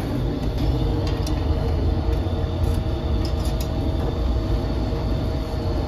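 Steady low rumbling roar of the clay tanoor oven's fire, with a few light clicks of the baker's metal hooks.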